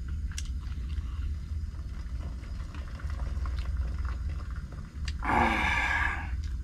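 A pot of spicy broth heating on a portable induction cooker over a steady low rumble, with a few light clicks. About five seconds in there is a louder sound of about a second as a slice of raw beef is lowered into the broth.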